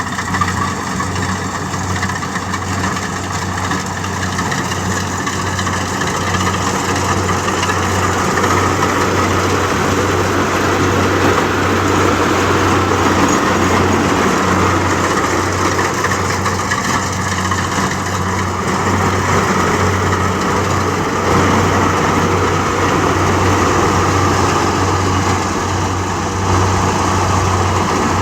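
Kubota DC-70G rice combine harvester's diesel engine and machinery running steadily with a low, even engine hum under dense mechanical clatter, growing a little louder over the first several seconds.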